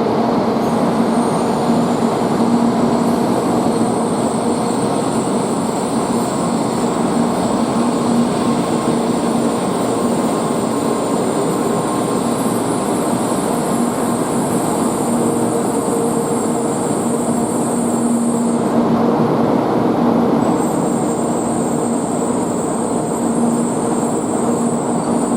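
N700A Shinkansen train pulling into the platform, a steady rumble with a high thin whine that cuts out briefly a little before two-thirds of the way through and then returns.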